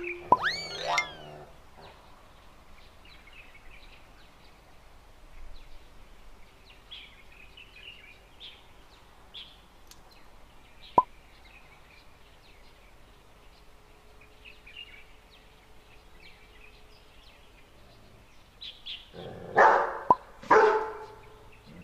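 Dog barking twice in quick succession near the end, loud and sharp, as the German shepherd and the border collie meet at the bone. Before that it is mostly quiet, with faint bird chirps.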